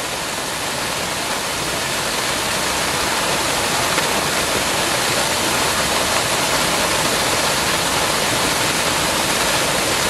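Triberg waterfall on the Gutach, water crashing down a rocky cascade in a steady, loud rush that swells a little over the first few seconds.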